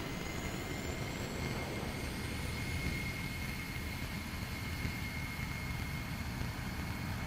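Cockpit noise of a BAE Hawk T1 jet in a hard, high-G turn. The Rolls-Royce Turbomeca Adour turbofan and the airflow make a steady rumble, with a steady high whine over it.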